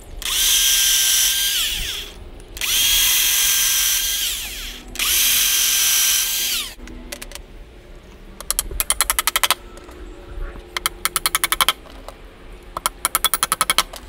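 Corded electric drill boring pilot holes into the edge of an OSB hive-body board to keep the nails from splitting it. It makes three runs of about two seconds each, and the motor's pitch falls as it winds down after each. In the second half come three short runs of rapid sharp knocks, about ten a second.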